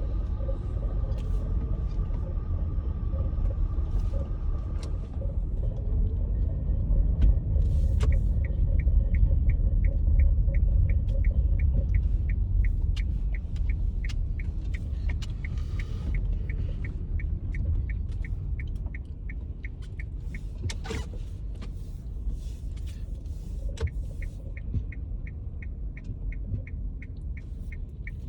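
Low rumble of a moving vehicle with a short, high-pitched squeak repeating evenly about twice a second, starting about eight seconds in.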